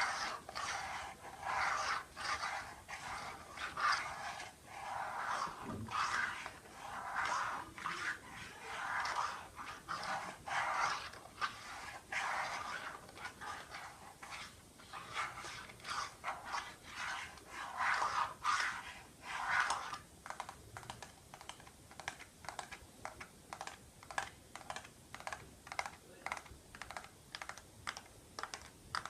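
Close-miked ASMR trigger sounds: for about the first twenty seconds, irregular soft rustling and smacking noises. After that, quick, even tapping with short, sharp clicks.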